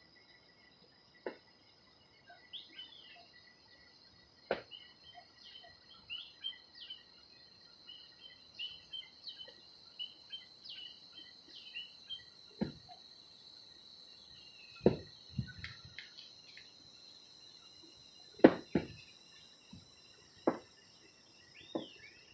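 Birds chirping over a steady insect drone, with sharp clicks and knocks scattered through, the loudest about fifteen and eighteen seconds in.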